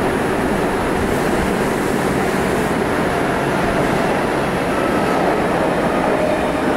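Osaka Municipal Subway 30000 series train running at steady speed through a subway tunnel: a continuous rumble of wheels on rail and running gear.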